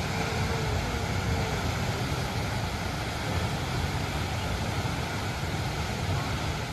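Steady rush of a waterfall, a constant roar of falling water.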